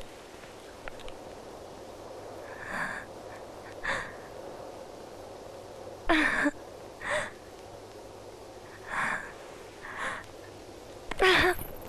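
A woman crying, with short gasping sobs every second or two; the loudest come about six seconds in and near the end.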